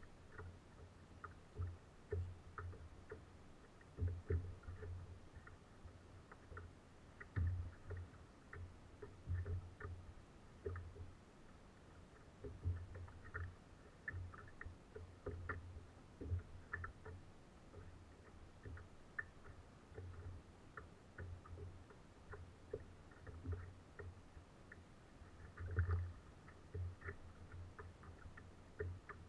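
Small waves lapping and knocking against a plastic kayak hull in irregular soft thuds and ticks.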